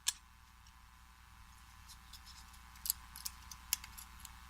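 Lock pick and tension wrench working in the keyway of a Slaymaker Super padlock: a few short sharp clicks, one right at the start and three more about three seconds in, with faint scraping between.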